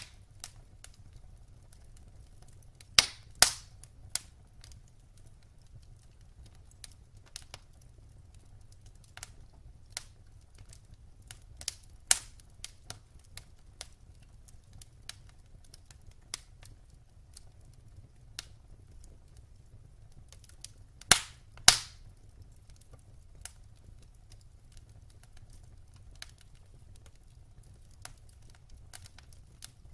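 Wood fire crackling in a fireplace: scattered sharp pops and snaps over a faint low rumble. Two loud double pops stand out, one a few seconds in and one about two-thirds of the way through.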